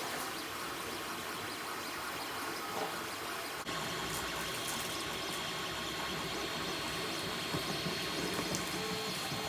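Creality Ender 3 Pro 3D printer running: a steady mechanical hum and whir of its stepper motors and fans. About three and a half seconds in the sound shifts abruptly, and a steady high whine runs on after it.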